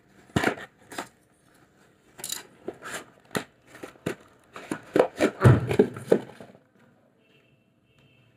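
Cardboard boxes being handled: a stove's product box is pulled out of a cardboard shipping carton, with a run of scrapes, taps and knocks, the heaviest cluster and a dull thump about five to six seconds in, then quiet.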